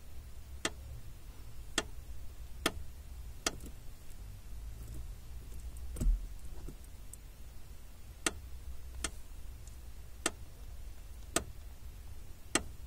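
2005 Honda Civic clutch pedal clicking as it is pressed and let up: about ten sharp clicks, roughly one a second, with a duller, louder knock about six seconds in. The uploader later traced the noise to an over-tightened lower mounting bolt on the clutch master cylinder.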